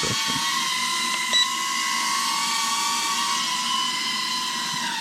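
Sanrock U61W mini quadcopter hovering, its motors and guarded propellers giving a steady high whine that wavers a little in pitch. A short sharp tick sounds once, about a second and a half in.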